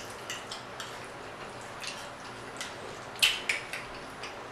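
Eating sounds: scattered small clicks and soft wet noises of a plate of chitterlings being eaten, with one sharper click a little past three seconds in.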